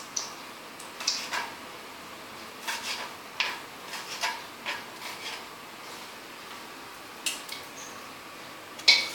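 Cooking utensils knocking and scraping against a wok and a frying pan on a gas stove: about a dozen short clinks spread through, with a steady faint hiss underneath.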